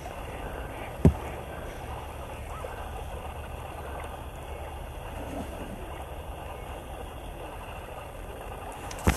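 Small shallow river running steadily, with a single dull thump about a second in.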